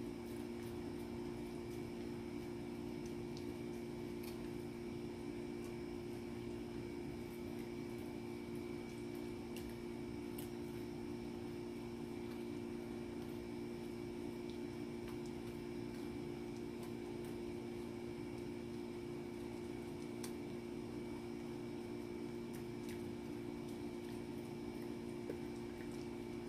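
A steady low hum with faint, scattered clicks of a small dog chewing a snack.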